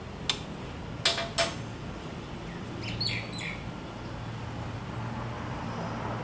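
Hand tool clinking against metal parts of a motorcycle engine, three sharp clinks within the first second and a half, then a few short chirps of a small bird about three seconds in, over a low steady hum.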